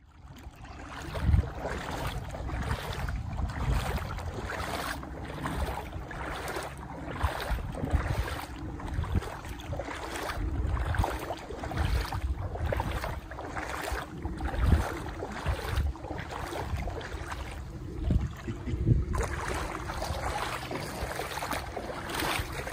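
Someone wading through floodwater, a splash and slosh with each step at walking pace, about one and a half steps a second. Wind rumbles on the microphone.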